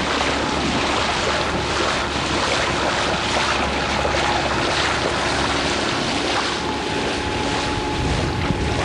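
Wind buffeting the microphone over water rushing along the hull of a small sailboat under way, a steady noise. A faint steady hum joins about six and a half seconds in.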